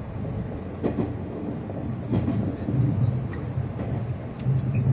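Running noise inside a JR 103 series electric multiple unit (cab car KuHa 103-170): a steady rumble of wheels on rail, punctuated by a few sharp knocks, with a low hum that grows stronger in the second half.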